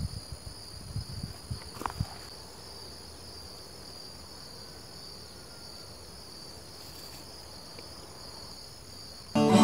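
Steady high-pitched chirring of insects, with a few low thumps in the first two seconds. Acoustic guitar music comes in near the end.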